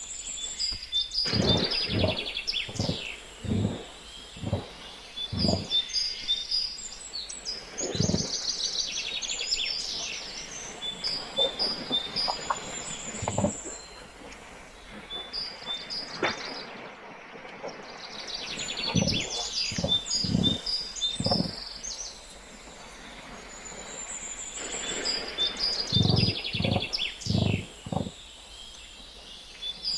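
Made-up Nanotyrannus (small tyrannosaur) sound effect: runs of short, low pulses in groups of several, over a forest ambience of birds chirping and trilling.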